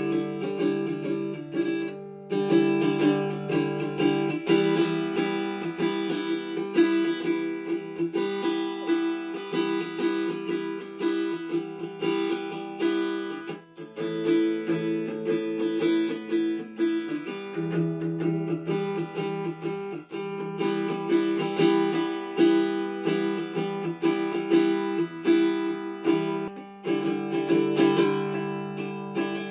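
Small acoustic guitar strummed steadily in rapid strokes, with the chord changing every few seconds.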